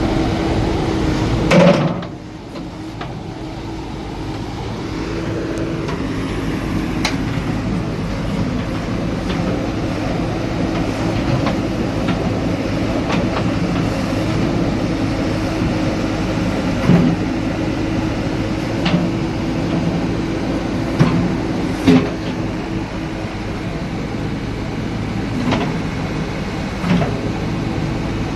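Excavator's diesel engine running steadily, with scattered metal clanks and knocks. A loud clank comes about a second and a half in, after which the engine sound dips and builds back up over a few seconds.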